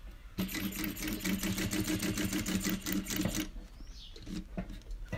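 Sewing machine stitching bias binding onto a fabric edge: a steady motor hum with a fast, even needle clatter. It starts about half a second in and stops after about three seconds.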